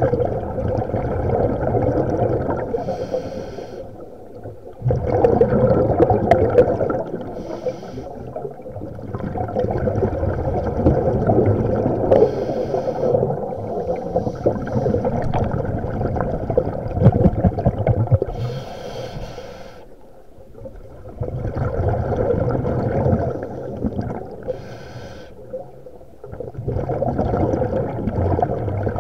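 Muffled underwater sound of a swimmer moving through a lake: water rushing and bubbling around the camera in long surges, broken by short lulls.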